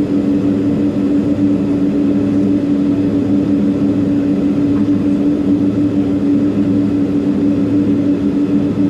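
Boeing 767-300ER's jet engines idling after landing, heard as a steady low cabin hum that holds one pitch.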